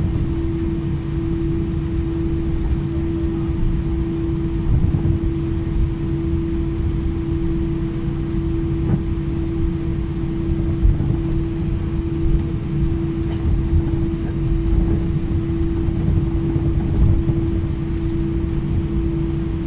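Jet airliner cabin noise while the plane rolls on the ground at low thrust: a steady engine hum over a low rumble, with a few faint knocks.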